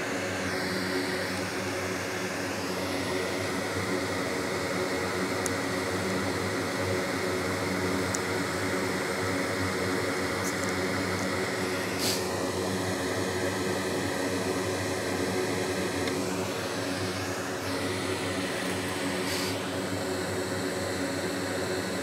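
Steady whir of a fan-driven machine with an underlying hum, and a higher whine that shifts pitch a few times, with a faint click about twelve seconds in.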